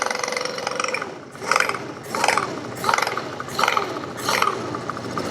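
A half-horsepower electric motor turning a Model T generator on a test rig, running with a steady hum for about the first second, followed by five rasping scrapes about 0.7 s apart.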